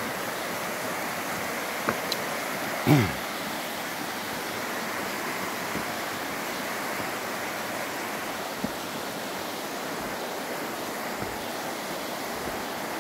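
Waterfall water sliding over bare rock, rushing steadily. About three seconds in there is a brief low sound that falls in pitch, the loudest moment.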